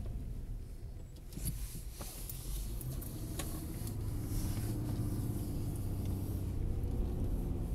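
Car driving, heard from inside the cabin: a steady low engine and road rumble that grows louder from about four seconds in as it picks up speed.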